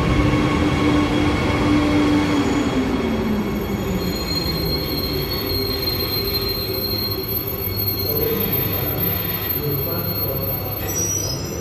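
Shiraz Metro train braking to a stop at the platform: its motor whine falls in pitch a little over two seconds in, and a high steady squeal comes in about four seconds in and holds until near the end, over a constant rumble.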